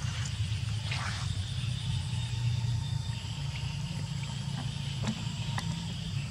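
A steady low motor-like hum, with a fainter high-pitched drone above it and a brief rustle about a second in.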